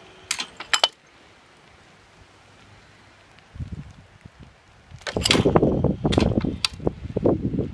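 A few sharp mechanical clicks and clacks from a Promatic Elite clay pigeon trap's throwing mechanism in the first second. From about five seconds in comes loud rustling and handling noise with more sharp clicks.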